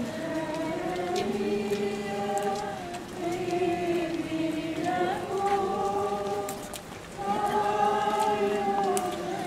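A crowd of procession walkers singing a slow hymn together in unison, on long held notes.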